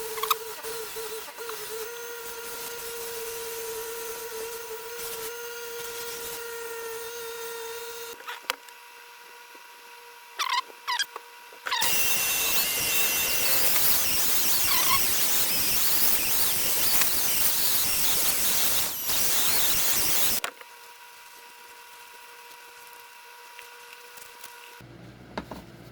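Electric buffing wheel running with a steady whine while a briar tobacco pipe is given its final polish. Brief squeals come a few seconds before the middle. Then for about eight seconds the pipe is pressed against the wheel, giving a loud rushing hiss. After that the motor runs on alone, quieter.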